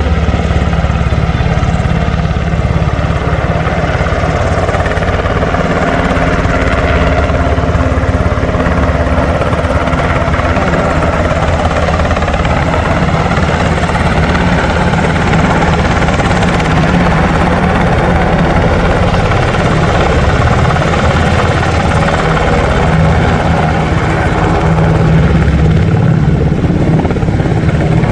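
UH-60 Black Hawk helicopter running: the steady beat of its rotor blades over the drone of its twin turboshaft engines as it flies past low and comes in to land, a little louder near the end.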